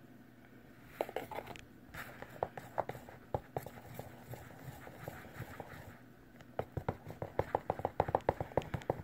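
Glue-based slime being stirred in a bowl after contact solution and baking soda are added, the utensil clicking and scraping against the bowl as the mixture thickens. The stirring quickens to a rapid run of clicks about two-thirds of the way in.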